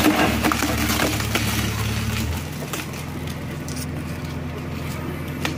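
Diesel engine of a Case 770EX backhoe loader working under load as its bucket pushes against a tree trunk, with sharp cracks of wood in the first second or so. About two seconds in, the engine note shifts and drops in level, then runs on steadily.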